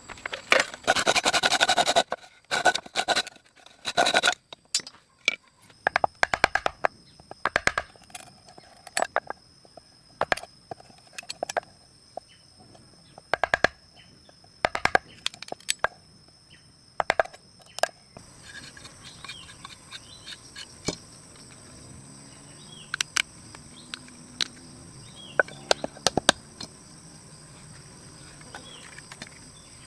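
Two loud rasping scrapes near the start, then irregular sharp knocks and clicks for about fifteen seconds, thinning out later, over a steady high background hum.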